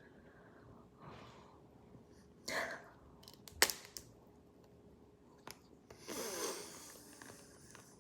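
A close-up bite into a crunchy raspberry dessert: one sharp crunch a little over a third of the way in, with soft chewing and heavy breaths through the nose around it, and a longer breathy burst near the end.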